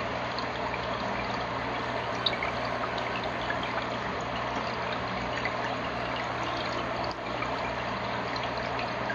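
Aquarium filter running: a steady trickle and splash of water into the tank, with a low, even pump hum beneath it.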